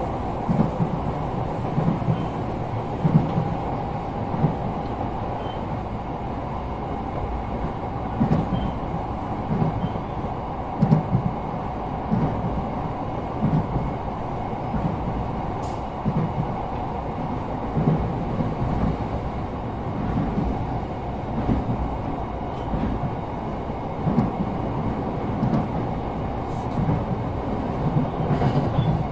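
Inside a Sotetsu 12000 series electric train car, MoHa 12909, with Mitsubishi IGBT-VVVF control, running at steady speed. There is a continuous running noise, and the wheels make a regular low thump over the rail joints a little less than once a second.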